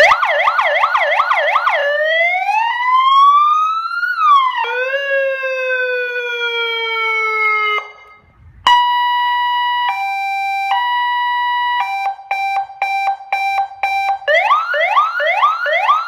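12 V seven-tone electronic siren with loudhailer, cycling through its tones: a fast repeating yelp, a slow rising then falling wail, a short break, then a steady two-tone hi-lo, a rapid pulsing two-tone, and fast rising sweeps again near the end.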